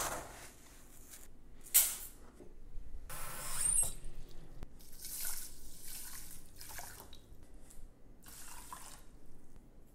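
Kitchen tap running into a measuring cup for about a second, the pitch of the splashing rising as the cup fills with water for rice. A sharp knock comes shortly before, and handling clinks and a short pour follow later.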